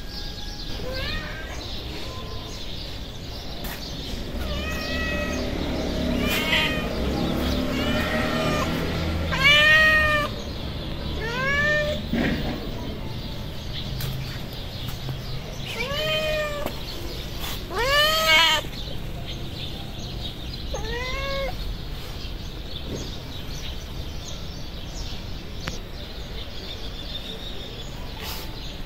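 Hungry stray tabby cat meowing repeatedly, about nine meows that each rise then fall in pitch, spaced a second or several apart, the loudest a third of the way through and again about two-thirds through.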